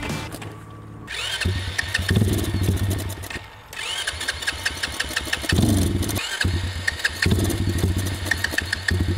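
Pit bike's small engine, fuelled by butane, running unevenly: it dies away three times and is started again each time.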